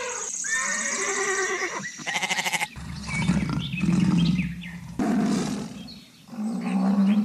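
A string of animal sound effects added for the toy animals: several different animal calls one after another, a new one every second or two, the loudest being low calls in the middle and near the end.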